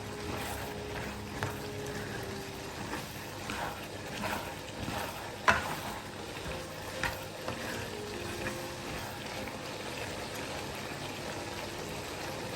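Soft background music of held notes that shift every few seconds, with a few sharp clicks and light knocks, the loudest about five and a half seconds in.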